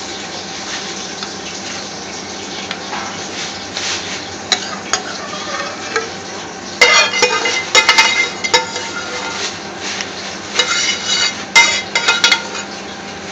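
A metal spoon scraping and clanking against a steel cooking pan as curry sauce is scraped out into a foil takeaway tray. The clanks come in two quick clusters in the second half, over a steady kitchen hiss with a light sizzle.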